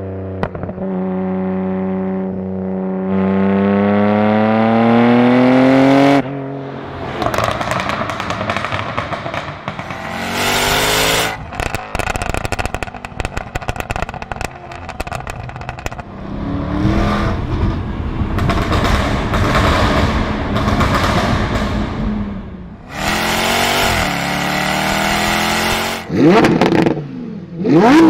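High-performance car exhausts revving in a run of separate clips. First a steady engine note climbs in pitch and cuts off abruptly about six seconds in, then come hard revs with rapid exhaust crackling. Near the end there are quick blips that rise and fall sharply.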